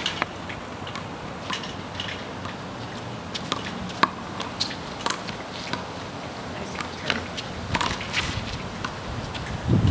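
Scattered sharp smacks of a handball being struck by hand and bouncing off concrete pavement and a brick wall, mixed with sneakers scuffing and stepping on the pavement. The sharpest smack comes about four seconds in, and a muffled low rumble rises near the end.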